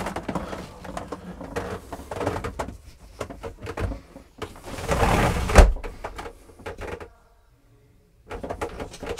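Ribbed sliding bathroom door held by magnetic side catches being pulled shut with a heavy thud a little past halfway, then jerked open against the magnets near the end. Shuffling and light knocks as a person sits down before it.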